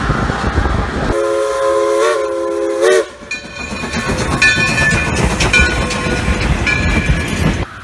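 After a second of low train rumble, a train whistle sounds a multi-note chord for about two seconds, dipping in pitch as it cuts off. Then railroad cars roll past, clicking over the rails with intermittent high squeals.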